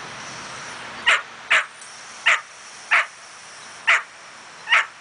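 A dog barking six short, sharp barks, spaced unevenly about half a second to a second apart.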